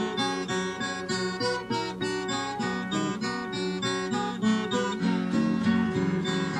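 Background music: an acoustic guitar picking an instrumental passage, with notes plucked in quick succession.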